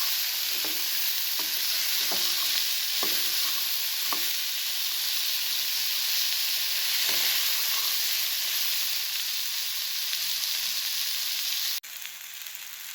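Boiled black chickpeas sizzling in hot oil with their tempering in a pan, stirred with a steady frying hiss and a series of scraping strokes against the pan. The sound cuts off abruptly about a second before the end.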